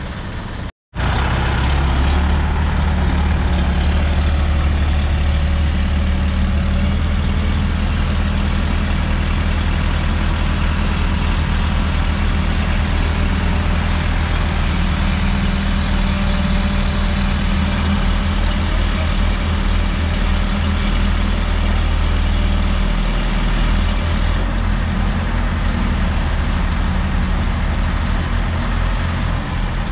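Diesel engine of an ACE hydra mobile crane running steadily at close range while towing a stuck truck. Its low note shifts about three-quarters of the way through.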